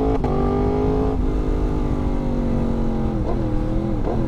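Yamaha MT-10's inline-four engine running under way on the road. There are two sharp breaks in the note about a second apart early on, the pitch sinks slowly after them, and it dips and recovers twice near the end.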